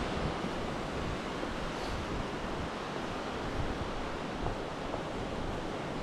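Steady rush of fast-flowing water from the river and falls, an even noise with no breaks.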